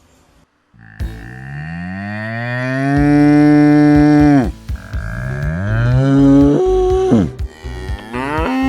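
Cow mooing: about a second in, one long moo that rises in pitch and holds for over three seconds before cutting off, then shorter moos follow.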